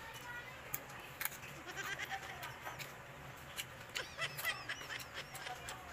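Crunching and chewing of raw cucumber: scattered sharp crunches of bites. Short high-pitched calls sound faintly in the background, one cluster about four seconds in.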